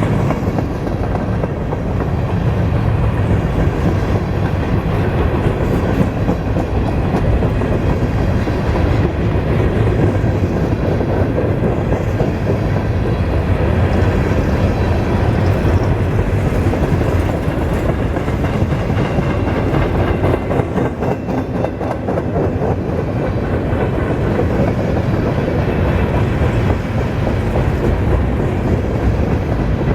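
Freight cars of a CSX manifest train rolling past, a steady sound of wheels on rail with rapid clicking over the rail joints.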